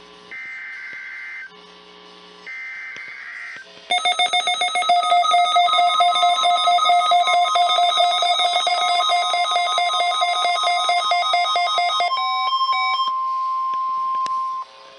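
Two short bursts of warbling SAME data tones from a NOAA Weather Radio weekly test, each about a second long with a second between them. About four seconds in, a loud, fast-pulsing electronic alert with several tones sounding together begins. It gives way to a single steady warning-alarm tone that cuts off abruptly shortly before the end.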